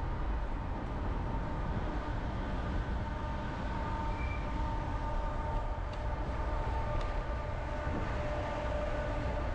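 Steady wind and road rumble from a moving bicycle, picked up by a camera riding on the bike, with faint steady whining tones above it.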